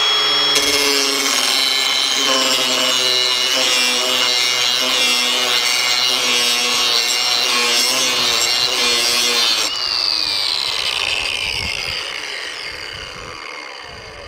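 Ryobi cordless angle grinder running at full speed, grinding the edge of a steel lawn mower blade to sharpen it. The pitch wavers as the grinder is worked along the edge. About ten seconds in the grinding stops and the grinder winds down with a falling whine.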